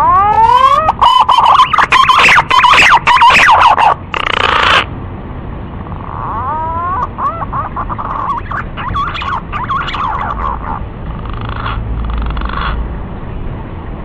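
Male pink-necked green pigeon calling: a loud run of rising, warbling whistles for about five seconds, then a quieter second run of the same rising notes. Two short, rougher sounds follow near the end.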